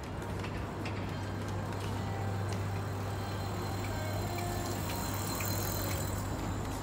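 Outdoor city ambience on a busy pedestrian walkway: a steady low hum under a background wash, with a few faint clicks.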